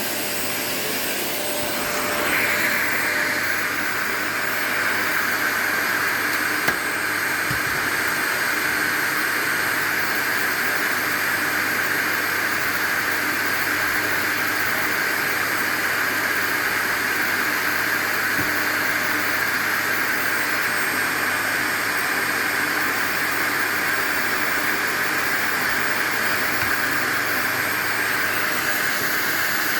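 Vacuum cleaner running with a steady hiss that grows louder about two seconds in, then holds; one sharp click a few seconds later.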